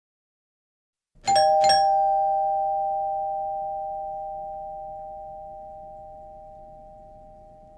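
Two-tone doorbell chime: a higher and a lower note struck about a second in, half a second apart, then both ringing on and slowly fading.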